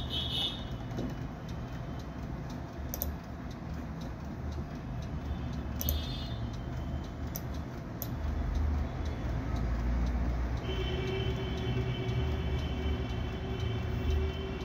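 Steady low background rumble, with brief faint high tones about six seconds in and a faint held tone for the last few seconds.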